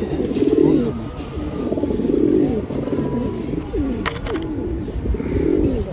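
Domestic pigeons cooing, several deep warbling coos overlapping and swelling every second or two.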